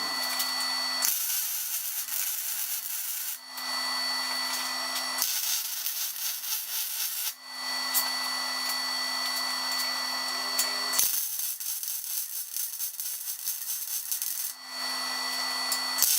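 Metalworking tool noise on steel plate, fitting a gusset to a mini bike frame: harsh crackling and rasping, in several short clips that change abruptly every few seconds.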